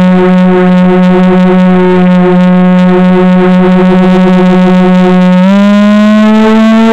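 Multirotor drone's motors and propellers heard from its onboard camera: a loud, steady buzzing tone. About five and a half seconds in the pitch rises as the motors speed up.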